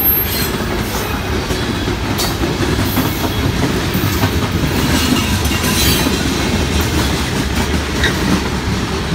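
Union Pacific freight train cars rolling past at speed: a steady heavy rumble of steel wheels on the rails, with occasional sharp clacks.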